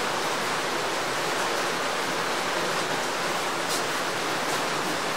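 Steady, even rushing hiss with no distinct events, with one faint tick a little before the end.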